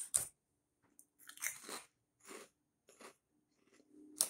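Sour cream and onion shrimp snack chips crunched and chewed close to the microphone, in several separate bouts about a second apart, with a sharper crunch near the end.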